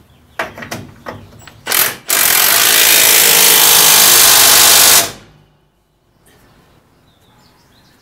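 A few clicks of handling, a short burst, then a cordless impact gun hammering for about three seconds as it runs a bolt down tight, cutting off sharply.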